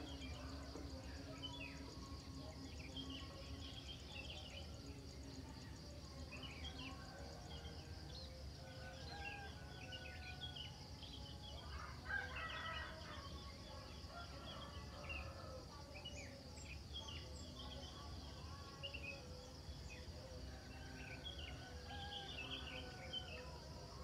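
Morning birdsong: many small birds chirping and twittering throughout over a steady high-pitched insect trill, with one louder, drawn-out call about halfway through.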